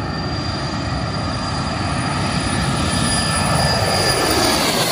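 Twin-engine aircraft taking off and climbing out past the microphone: a steady engine noise with a high whine that grows louder, the whine dropping in pitch near the end as the plane passes.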